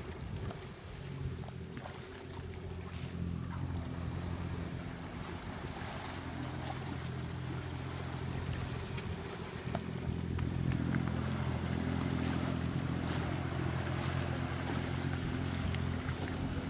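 Belassi B3R Sport personal watercraft engine running steadily at low speed, an even hum that grows louder about ten seconds in as the craft comes closer.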